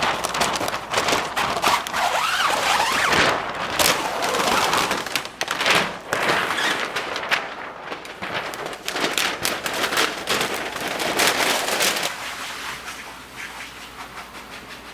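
Large sheet of paint protection film being handled and repositioned on a panel, crackling and rustling with many sharp irregular snaps, dying down after about twelve seconds.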